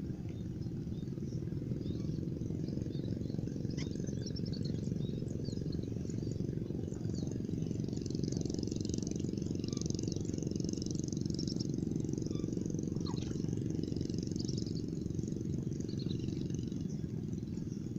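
Outdoor ambience: a steady low rumble, with many short, high bird chirps and calls scattered above it, busiest in the middle.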